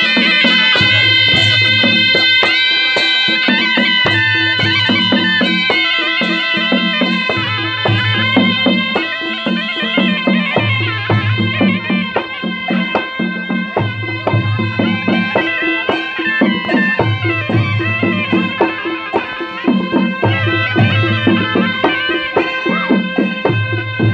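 Two Nepali sanai, double-reed shawms with brass bells, play a folk melody in unison over a two-headed barrel drum. The drum beats a pattern that repeats about every three seconds.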